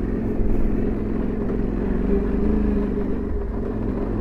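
Yamaha Ténéré 700's 689 cc parallel-twin engine running steadily while the motorcycle is ridden.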